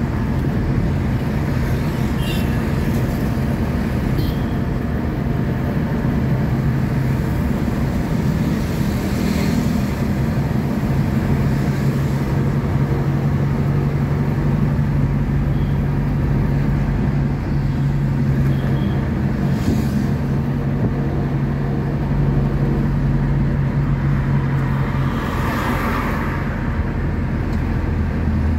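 Engine and road noise heard from inside a moving bus: a steady low engine drone under the rush of tyres and traffic. About three-quarters of the way through, the engine note drops lower.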